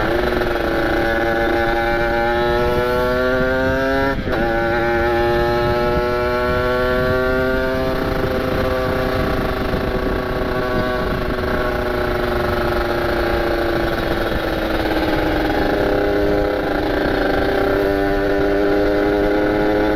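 Kawasaki Ninja RR's ported single-cylinder two-stroke engine under way. It climbs in revs, breaks off briefly about four seconds in at a gear change, and climbs again. It then slowly eases off into a steady cruise, with another step up in revs near the end.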